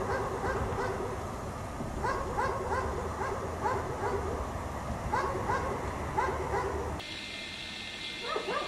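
A dog barking repeatedly in runs of several quick barks, with pauses between the runs. A low rumble behind the barks cuts off about seven seconds in, and steady high tones come in under the last run of barks near the end.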